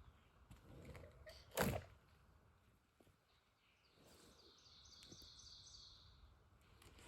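Quiet outdoor background with a single sharp knock about a second and a half in, then a faint bird song of quick repeated high notes for about two seconds.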